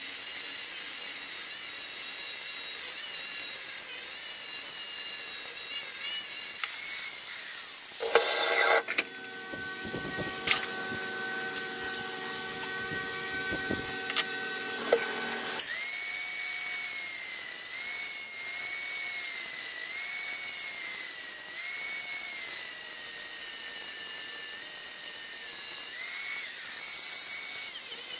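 Angle grinder with an abrasive disc cutting into the steel of a Craftsman ratchet handle, a steady hissing whine. About nine seconds in the grinding stops, leaving a few metal clinks. At about sixteen seconds the grinder cuts again, its whine wavering as the disc bears on the steel.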